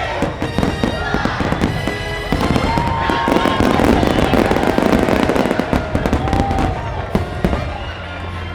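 Fireworks bursting in rapid volleys of bangs and crackles, with show music playing underneath.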